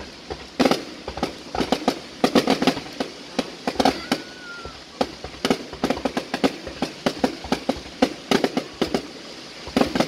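Aerial fireworks bursting in a rapid, irregular string of sharp bangs, several a second, with louder clusters about two seconds in and again near the end.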